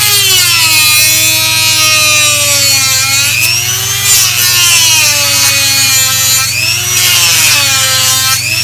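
Dremel rotary tool with a cut-off wheel, running at high speed and cutting a slot through black acrylic sheet. Its whine dips in pitch and climbs back several times as the wheel is loaded in the cut and eased off.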